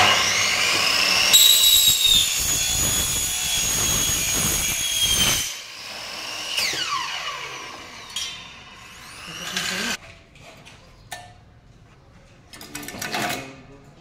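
Electric mitre saw cutting aluminium profile: a high, steady whine that starts abruptly and runs for about five seconds, then the motor is switched off and the blade spins down with a falling whine. Shorter, quieter sounds follow.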